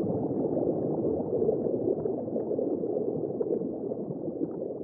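Underwater ambience picked up through a camera housing: a muffled, steady rushing and gurgling of water with faint scattered crackles, beginning to fade out near the end.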